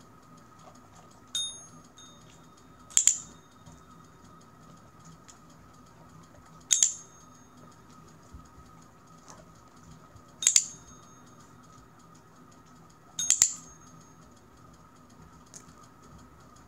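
Desk call bell struck by a dog's paw or nose. It gives one softer ring about a second in, then four sharp, louder clicks with a short high ring, some three to four seconds apart.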